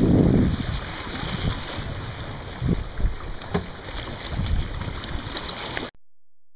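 Wind buffeting the microphone aboard a Sunfish sailing dinghy, with water noise along the boat and a couple of short knocks midway. The sound cuts out completely near the end.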